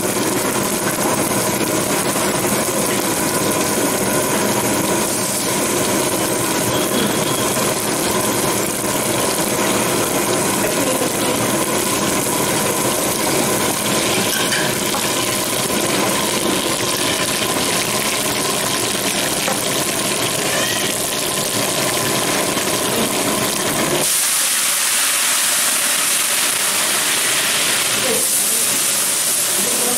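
Steady hissing and rumbling of a large pot of dried red chillies tempering in hot oil over a gas burner. A few seconds before the end the rumble drops away, leaving a brighter hiss.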